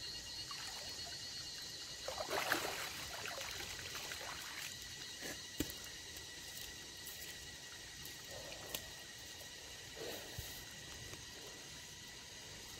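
Water splashing and trickling, loudest from about two seconds in for a couple of seconds, with a few sharp knocks later and a steady high-pitched tone underneath.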